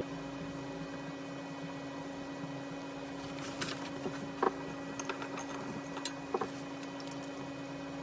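Paper sheets being picked up and turned over, a few short rustles and taps about halfway through and again past the middle, over a steady electrical hum.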